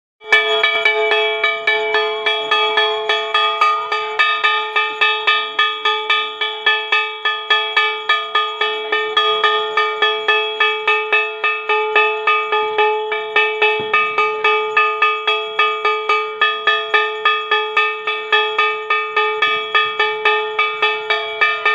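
A puja bell ringing without a break in a fast, even rhythm, some four or five strikes a second, as is done during a Kali Puja aarti.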